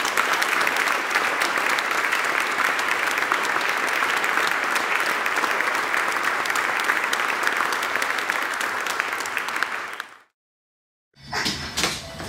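Crowd applause: dense, steady clapping for about ten seconds, fading out just after ten seconds in, followed by a second of silence and then quiet room sound.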